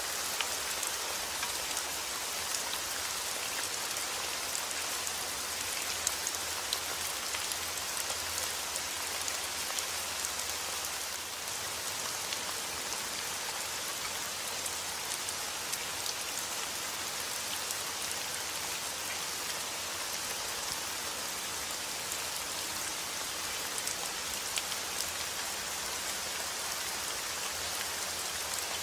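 Heavy rain falling steadily outdoors, a dense even hiss with scattered drops ticking on surfaces.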